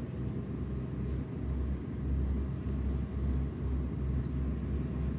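Wind buffeting the microphone outdoors: a low, uneven rumble that swells and dips with the gusts.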